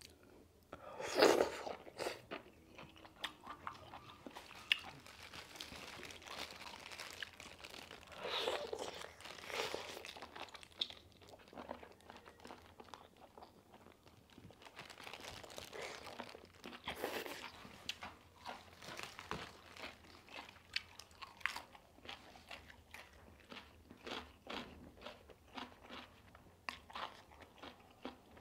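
Close-up mukbang eating sounds: noodles and octopus in super-spicy sauce being bitten and chewed, the octopus crunchy in the mouth. There are a few louder, longer wet mouthfuls, with many short crunches between them, more of them near the end.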